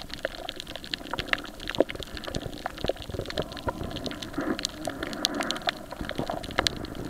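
Underwater sound over a shallow coral reef: a steady watery hiss with many sharp, irregular clicks and crackles.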